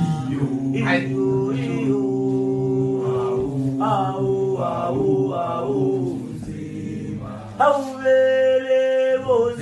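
A man singing without accompaniment in slow, long-held notes. A higher note comes in at about eight seconds and is held steadily.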